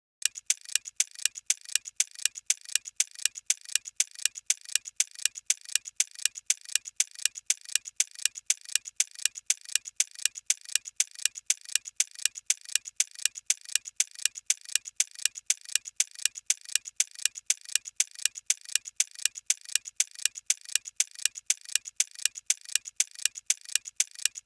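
Clock-ticking countdown timer sound effect, a steady, even ticking that marks the seconds left to answer.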